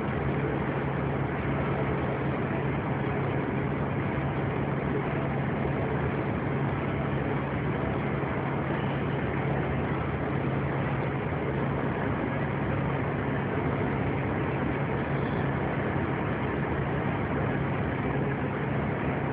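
Vehicle engine and road noise heard from inside the vehicle while cruising at a steady speed: a constant low engine hum over an even rush of tyre and wind noise.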